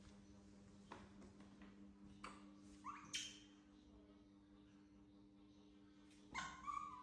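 A young pet gives two faint, high whimpering squeaks, the first rising in pitch about three seconds in and the second near the end, over a steady low hum.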